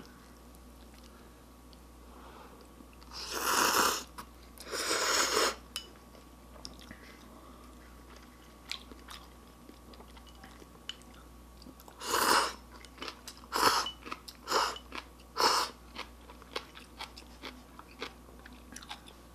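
A person eating cheese ramyun up close: two long, loud slurps of noodles about three and five seconds in, then a run of four shorter slurps between about twelve and sixteen seconds, with soft wet chewing and small clicks in between.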